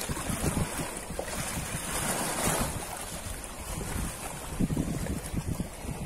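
Ocean waves washing on a shore, the rush of surf swelling about two seconds in, with gusts of wind buffeting the microphone.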